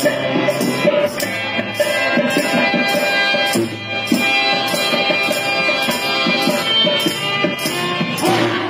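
Music with a steady beat of about two strokes a second, playing through a loudspeaker.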